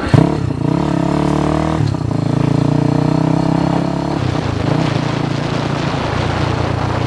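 Small motorcycle engine pulling away and accelerating: the engine note climbs, drops at a gear change about two seconds in, climbs again and drops at a second shift about four seconds in, then runs steadily.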